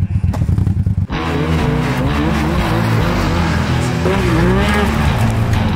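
An engine running with a choppy, uneven beat. About a second in, off-road vehicle engines are heard revving up and down, with background music.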